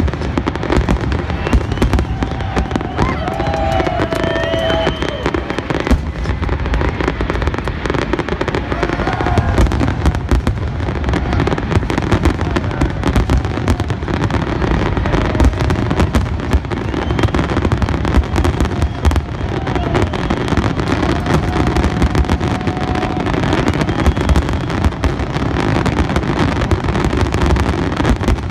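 Aerial fireworks display: a dense, continuous barrage of shell bursts, with bangs and crackling overlapping one another.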